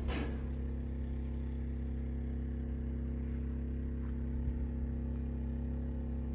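An engine running at a steady idle, a constant low hum that does not change in pitch.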